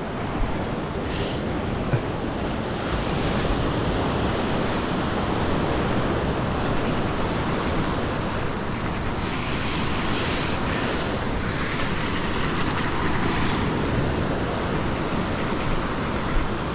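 Surf washing up a beach: a steady rush of breaking waves and foam, swelling brighter about nine seconds in, with wind buffeting the microphone.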